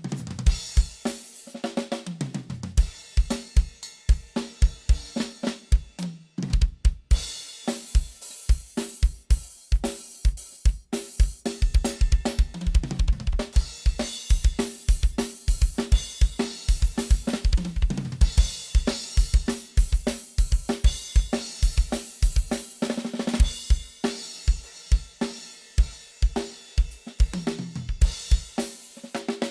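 Drum kit played solo during a sound check: rapid bass drum strokes under snare, hi-hat and cymbals, with several fills running down the toms from high to low.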